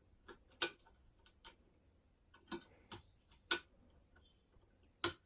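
Metal clicks of a lever lock pick working the levers inside a 5-lever Eclipse mortice lock while the bolt is held under tension: scattered sharp clicks at irregular spacing, about one a second.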